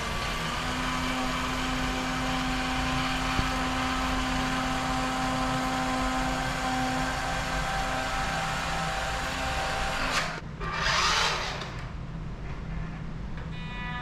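Small electric motors of a radio-controlled toy vehicle running with a steady whine. About ten seconds in the whine breaks off and a louder, noisier burst follows for a second or two.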